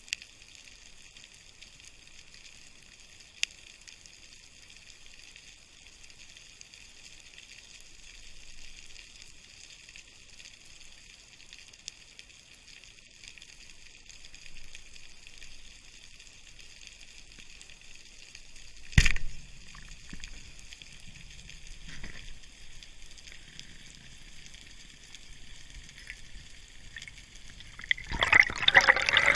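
Underwater ambience: a steady hiss with a few sharp clicks and one loud knock about two-thirds of the way in. Loud water splashing and bubbling comes in near the end.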